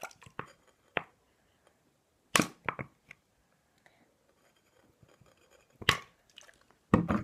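Plastic squeeze bottle being handled and squeezed over a bowl, giving scattered sharp clicks and crinkles with quiet gaps between; the loudest come about two and a half seconds in and again near six seconds.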